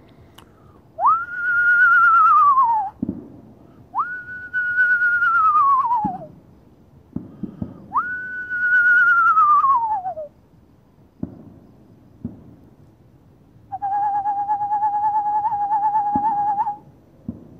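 A person whistling an imitation of an eastern screech owl's call: three falling wails of about two seconds each, then a steady, quavering trill near the end.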